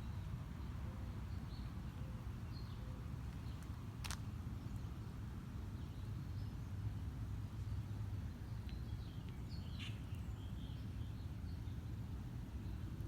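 Outdoor ambience with a steady low rumble, two sharp clicks, and faint bird chirps about ten seconds in.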